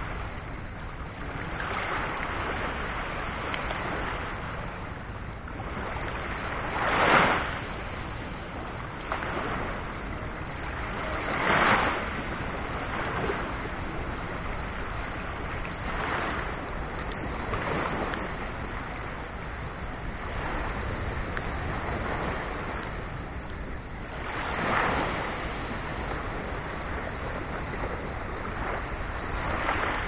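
Small waves of a calm Black Sea breaking and washing up the beach: a steady wash with louder surges every few seconds, the strongest about seven and twelve seconds in.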